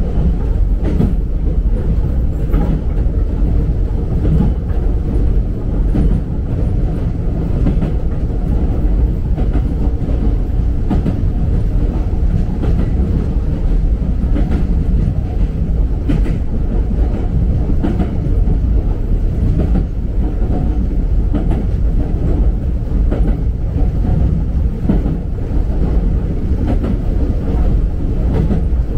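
Electric train running along the track, heard from inside the car at the front: a steady low rumble of wheels and running gear, with wheels clacking over rail joints now and then.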